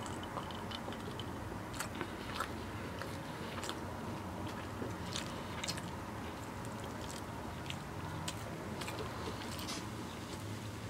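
Close-miked mouth sounds of a person eating and drinking: chewing with scattered small wet clicks and smacks over a steady low background hum.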